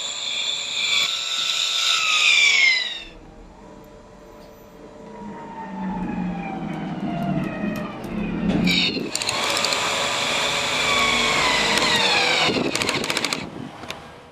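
Cordless drill driving bolts through a boat's hull-to-deck join, its motor whine dropping in pitch as it loads up. Two runs: one stops about three seconds in, the other starts about nine seconds in, with a burst of rapid clicks near the end.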